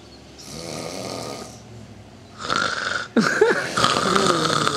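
A sleeping man snoring: a soft breathy draw of air first, then about halfway through a louder, rattling snore that carries on.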